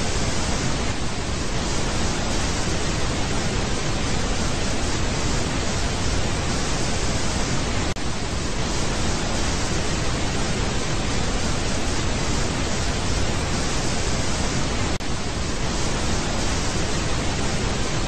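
Television static: the steady hiss of white noise from an analogue TV tuned to a channel with no signal, with two brief faint dropouts, about halfway and near the end.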